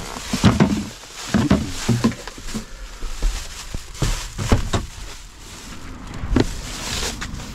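Plastic garbage bag rustling and crinkling as it is lifted and carried, with scattered knocks and clicks of handling; about four seconds in, a sharp click or two as a van's cab door handle is pulled and the door swung open.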